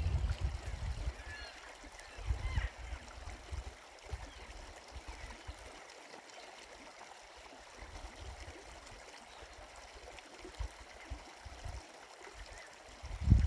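A river running steadily, with a few faint, short bird chirps.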